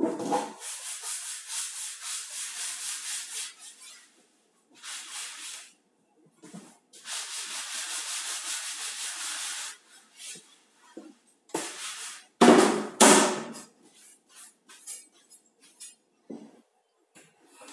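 Dishes being scrubbed at the kitchen sink: runs of quick rubbing strokes a few seconds long, with pauses between. About twelve seconds in come a few loud knocks and clatters, followed by smaller clicks.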